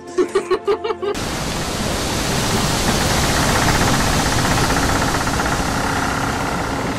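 A short burst of laughter, then a loud, steady rushing hiss that sets in suddenly about a second in.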